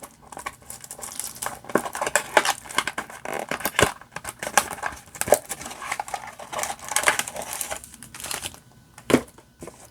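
Foil booster packs crinkling and small cardboard boxes rustling as they are handled, with scattered irregular taps and clicks. The rustling falls quiet briefly near the end.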